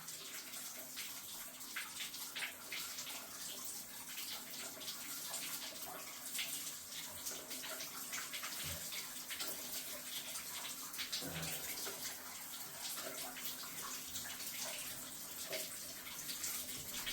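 Water running at a tub-shower fixture, a faint steady hiss, with a few faint knocks. The water is on while the leaking shower mixer is being tightened.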